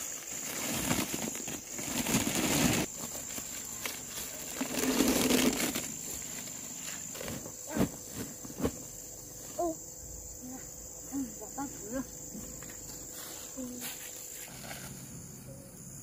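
Dry corn cobs tipped from a wicker basket into a woven plastic sack: rustling of the sack and the cobs knocking together for the first several seconds, then a few sharp knocks. A steady high insect drone runs underneath, with short rising chirps in the second half.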